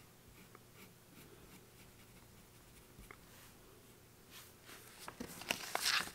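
Pencil drawing on a paper pattern sheet: faint scratching strokes, then a run of louder, quicker scratchy strokes near the end.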